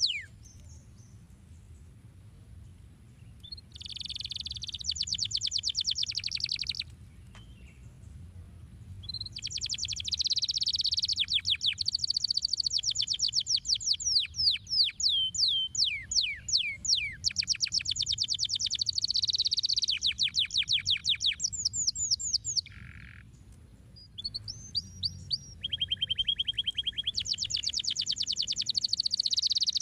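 Domestic canary singing: phrases of rapid trills and quick falling whistled notes, broken by short pauses.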